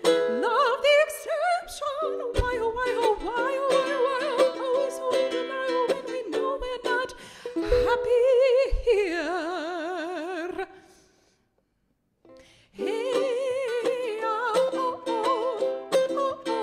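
A woman singing along to her own strummed ukulele. A held, wavering sung note leads into a sudden dropout of about two seconds past the middle, after which the strumming and singing pick up again.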